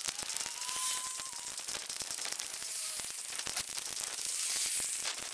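Hiss with many rapid clicks from a camera carried on a run, the recording sped up to match the timelapse, and a brief whistle-like tone about a second in.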